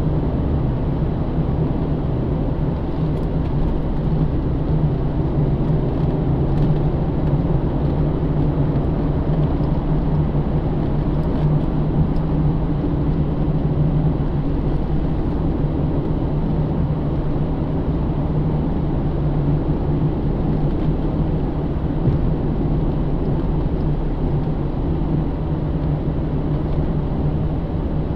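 Cabin sound of a 2009 Pontiac G8 GT's 6.0-litre V8 cruising at a steady pitch, with a low hum and a constant wash of tyre and road noise.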